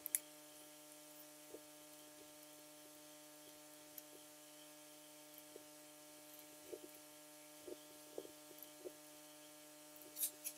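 Quiet steady electrical hum, with scattered faint clicks of computer keys being typed and a few sharper mouse clicks at the start and near the end.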